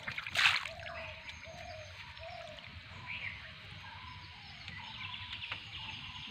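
A bird calling with a run of short, low, arched notes, after one short sharp noise about half a second in, over steady outdoor background noise.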